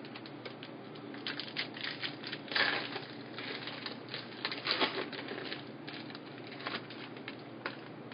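Trading cards and foil pack wrappers being handled, with irregular crinkling and clicking that is thickest in the first half and thins to a few single clicks near the end.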